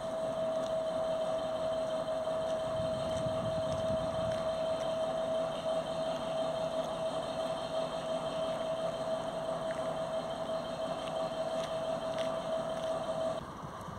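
M62 diesel locomotive's two-stroke V12 engine idling, with a steady high whine held over the engine's rumble. The sound drops away suddenly near the end.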